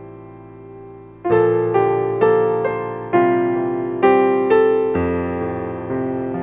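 Slow, gentle piano music: a held chord fades away, then, a little over a second in, single notes and chords are struck about every half second, each ringing and dying away.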